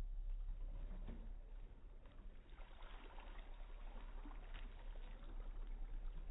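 Low steady rumble of wind on the microphone, with a few faint clicks and rustles.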